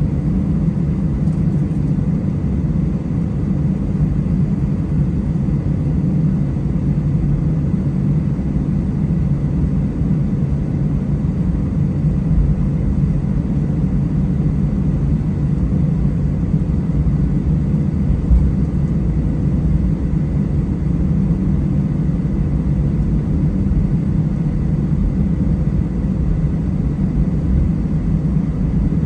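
Cabin noise of an Airbus A320 taxiing, heard from a window seat over the wing: the engines at idle give a steady low rumble with a faint whine, and one short bump sounds about eighteen seconds in.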